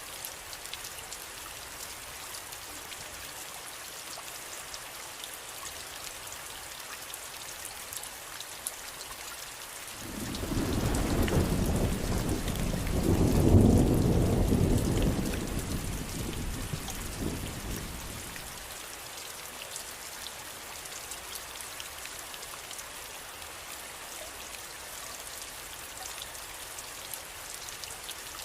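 Steady rain falling, with a roll of thunder that starts suddenly about a third of the way in, swells to its loudest a few seconds later and rumbles away over several seconds.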